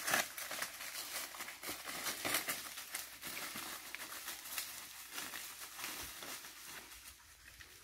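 Footsteps crunching and rustling through dry fallen leaves in uneven crackles, thinning out and growing fainter toward the end.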